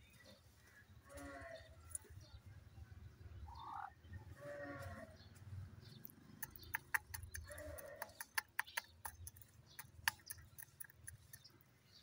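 Faint farmyard animal calls: a few short bleat-like calls a second or two apart, one rising and then falling. In the second half comes a quick run of sharp clicks and ticks.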